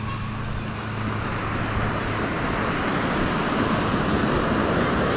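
Ocean surf breaking and washing up a sandy beach, the rush swelling louder through the second half. A low steady hum sits under it early on and fades after about a second.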